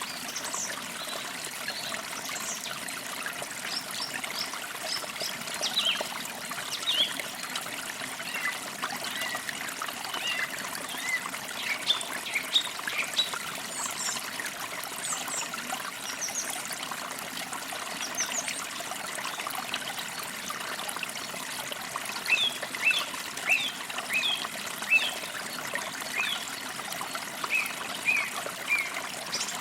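Creek water trickling steadily over stones, with songbirds chirping in short repeated notes, busiest about a third of the way in and again over the last quarter.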